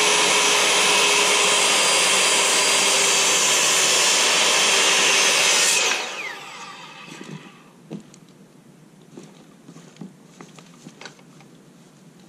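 Corded circular saw cutting through a wooden deck post, its motor running steadily with a slight sag in pitch under load. About six seconds in it is switched off and winds down with a falling whine, followed by a few light knocks and thuds.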